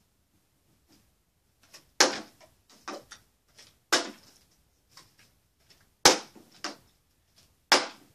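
Partly filled plastic water bottle flipped and landing on a wooden cabinet top four times, about two seconds apart. Each landing is a sharp knock, and some are followed by smaller knocks as the bottle bounces or tips over.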